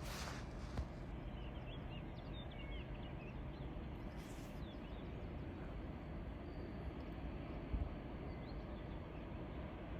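Steady low background rumble of a railway station, with small birds chirping in short calls now and then in the first half.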